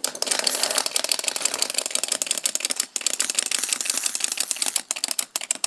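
Plastic wind-up toys running on a hard floor: their clockwork gears give a fast, dense clicking rattle.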